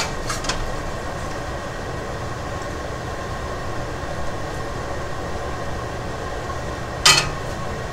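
Steady mechanical hum with a hiss, and a short clatter about seven seconds in.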